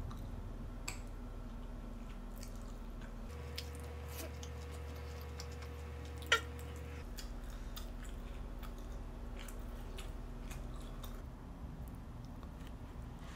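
Close eating sounds: chewing and biting on sauced fried chicken and rice, with small clicks of a metal fork and spoon, one sharper click a little past halfway. A low steady hum sits underneath.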